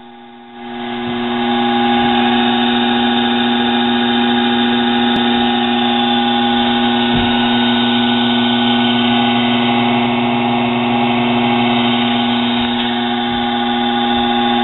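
Small benchtop lathe, refitted with a larger motor driving the spindle by belt, starting up and coming to speed within the first couple of seconds, then running steadily with a constant hum and whine.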